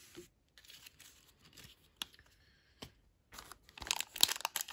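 Foil trading-card pack wrapper crinkling and starting to tear as it is handled, building up over the last second or so. Before that, a few faint light taps.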